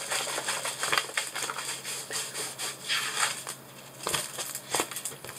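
Crinkling of a diamond painting canvas with its plastic cover film as it is rolled by hand: irregular rustling with a few sharper crackles.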